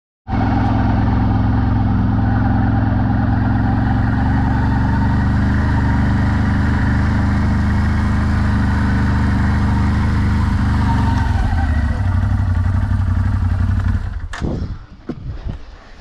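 A small motorbike engine runs steadily, then fades and cuts out about fourteen seconds in. A few sharp knocks follow.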